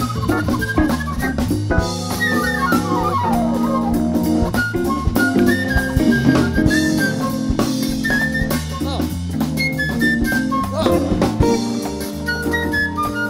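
Live soul-jazz blues from a Hammond organ combo: drum kit keeping time under held chords, a walking bass line and fast single-note runs.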